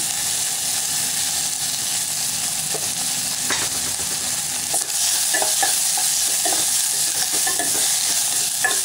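Chopped onions, green chilli and curry leaves sizzling in hot oil in a steel pot, the tempering for a sambar. A spoon knocks and scrapes against the pot a few times about halfway through, then stirs steadily, a little louder, in the second half.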